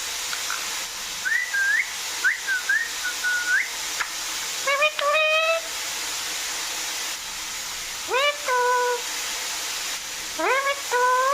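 Pet parrot whistling a string of short rising and falling notes, then giving three drawn-out 'yeee' calls that each sweep up and hold, over a steady hiss.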